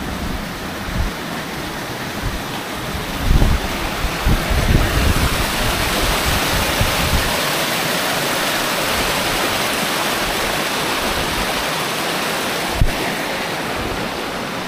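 Steady rushing water, like a stream or small waterfall, growing louder about five seconds in. In the first few seconds wind gusts buffet the microphone.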